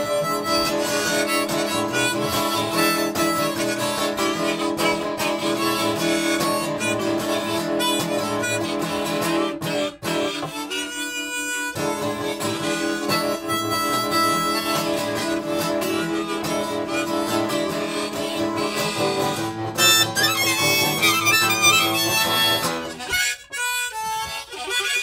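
Harmonica played in a neck rack over a strummed acoustic guitar: an instrumental harmonica break in a song.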